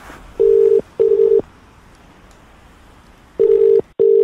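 Telephone ringback tone heard by the caller: a double ring, two short beeps close together, a pause of about two seconds, then another double ring. This signals that the called phone is ringing at the other end. Faint line hiss fills the gaps.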